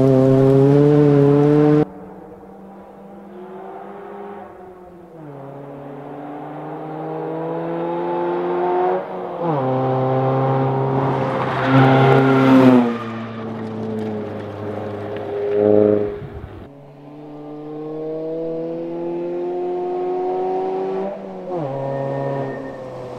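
2002 Ford Focus rally car's engine at full throttle, pitch climbing through each gear and dropping back at every upshift, several times over as the car passes at stage speed. A loud pass at the start cuts off suddenly about two seconds in.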